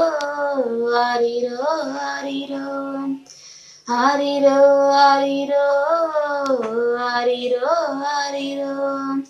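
A young woman singing the opening of a Tamil Christmas lullaby solo, in two long, held phrases with a short breath pause just after three seconds in.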